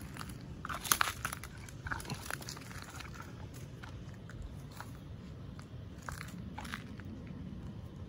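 Wild horse grazing: irregular crisp snaps and crunches of grass being torn off and chewed, loudest about a second in.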